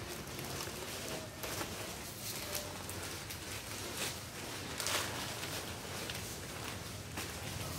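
Plastic snack packets rustling and crinkling as they are handled at a shelf, with a few sharper crinkles, over a faint low hum.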